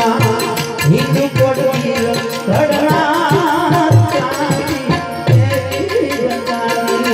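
Live Gujarati devotional folk music: a harmonium's melody over steady hand-drum strokes, with a light, regular ticking of percussion above.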